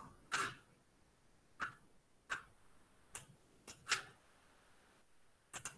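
A computer mouse clicking: about seven short, sharp clicks at irregular intervals.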